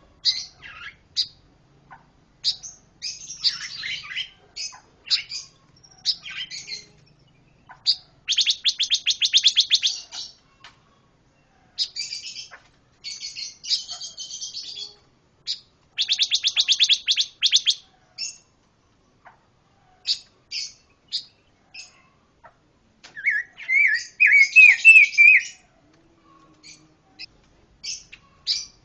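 Pancawarna songbird singing a varied, rapid song of short high chirps. It breaks into two fast rattling trills of about ten notes a second, each lasting around two seconds, and near the end gives a loud run of rising whistled notes.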